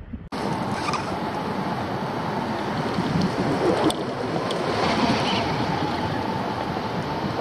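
Steady rushing wind on the microphone of a camera mounted on a hang glider's wing in flight, cutting in abruptly a moment in.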